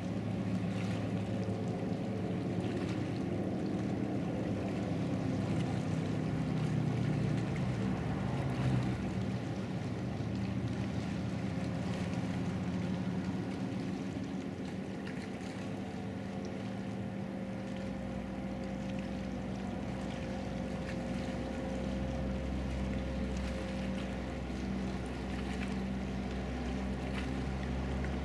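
A sport boat's engine droning across open water as the boat runs at speed, loudest about a third of the way in, then easing off as the boat slows toward a stop, with a low rumble underneath near the end.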